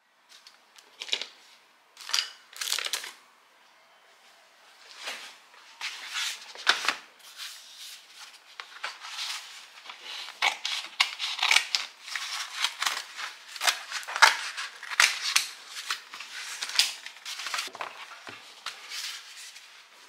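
A cardboard mailer being opened and handled: a few separate knocks and rustles at first, then a long run of irregular crackling, scraping and tearing of cardboard and paper.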